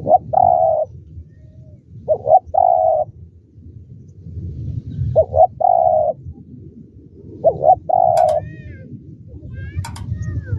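Spotted dove cooing: four phrases about two and a half seconds apart, each two quick notes followed by a longer held coo. A few short high chirps come near the end.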